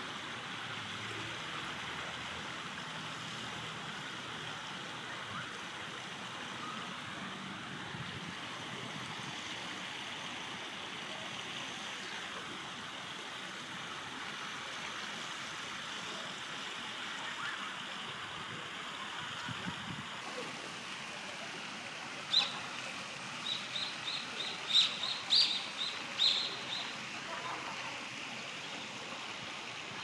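Steady rush of running river water. Near the end a bird gives one sharp high call, then a quick series of about ten more short high notes over three or four seconds.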